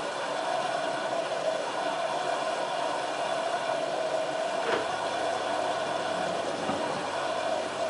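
LG F1443 front-loading washing machine running a wash programme: a steady motor hum with a single short knock about five seconds in.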